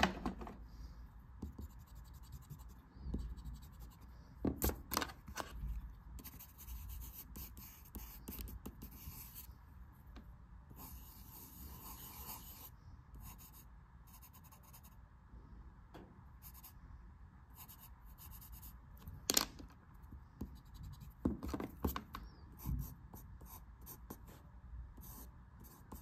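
Pencil scratching on paper in short, intermittent sketching strokes, with a few sharp clicks in between.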